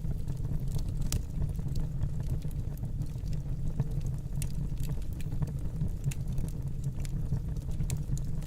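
Fire burning in a fireplace: a steady low rumble of flame with scattered sharp crackles and pops.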